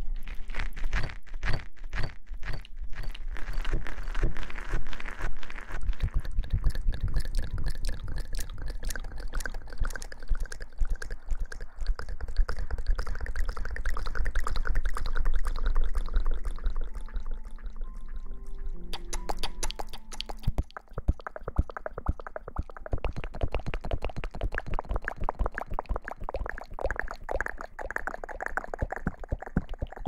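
Wet mouth sounds made right at an ASMR microphone: a rapid run of small lip and tongue clicks and smacks.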